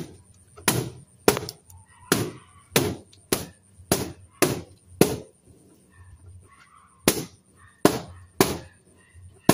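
Latex party balloons being popped one after another: a quick run of about nine sharp bangs, roughly one every 0.6 seconds. After a pause of about two seconds, three more pops follow.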